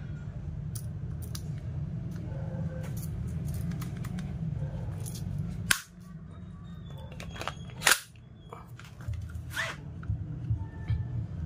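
Handling an E&C Glock 17 Gen 5 gas blowback airsoft pistol: light clicks and rustles from the plastic gun and its tags, with two sharp clicks about two seconds apart from its mechanism, over a steady low hum.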